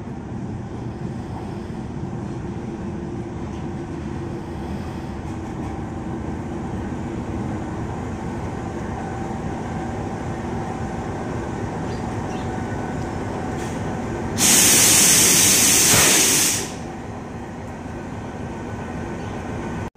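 GE U20 diesel-electric locomotive drawing a passenger train slowly in alongside the platform, its diesel engine running with a steady low drone that grows a little louder as it nears. About three-quarters of the way through, a loud hiss of released air cuts in for about two seconds and stops sharply.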